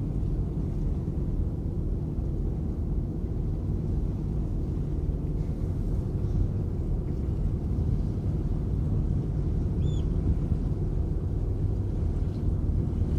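Steady low rumble of a ferry under way: engine drone mixed with wind buffeting the microphone on the open deck. A brief high chirp sounds once about ten seconds in.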